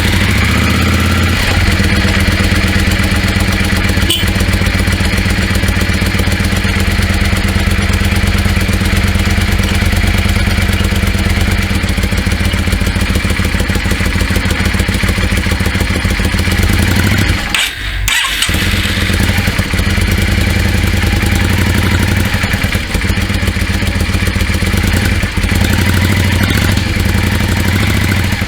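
Stock-exhausted 1998 Yamaha Drag Star (V-Star) 650 air-cooled V-twin on a cold start, settling right after it catches into a steady idle. About two-thirds through, the sound briefly drops in level, then carries on as before.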